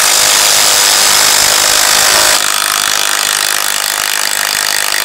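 Two cordless impact drivers, a Hyper Tough 12V brushless and a Bosch, hammering 6-inch structural screws into a wooden post. About two and a half seconds in the Hyper Tough finishes and stops, and the Bosch, on its highest speed, keeps hammering alone, a little quieter.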